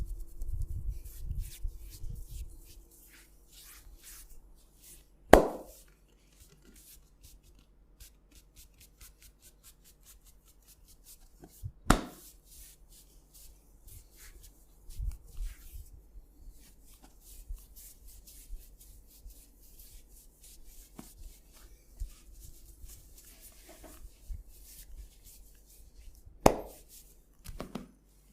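Hands massaging a head: rubbing and light tapping on skin and hair, with a quick run of soft thuds in the first few seconds. Three sharp, loud smacks come about 5, 12 and 26 seconds in.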